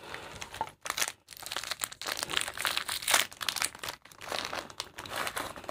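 Plastic biscuit wrapper crinkling as it is opened by hand, crackling on and off with a few brief pauses.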